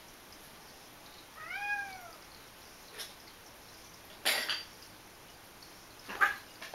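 A cat gives one short meow that rises and then falls in pitch, about a second and a half in. Two short, harsh, noisy sounds follow about two seconds apart, the second one the loudest.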